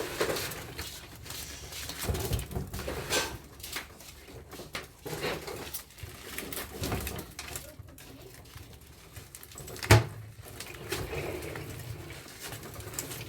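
Irregular knocks and clatter of parts and tools being handled while an air-conditioner blower is stripped, with one sharp knock about ten seconds in. A pigeon or dove coos in the background.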